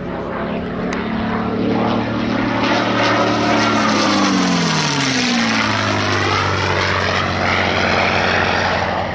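A propeller aircraft's engine passing by, its note falling in pitch as it goes past about four to five seconds in.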